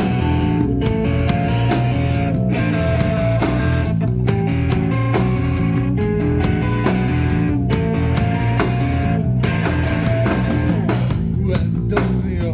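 Rock band playing an instrumental passage, with a guitar melody over bass guitar and drum kit.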